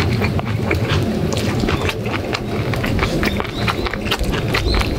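Bean sprout bulgogi in red sauce sizzling on a cast-iron pot-lid griddle, with many quick crackles and pops, over a steady low rumble of wind.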